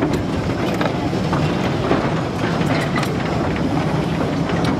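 Narrow-gauge War Department Light Railway wagons rolling along the track: a steady rumble with irregular clicks and rattles from the wheels running over the rails.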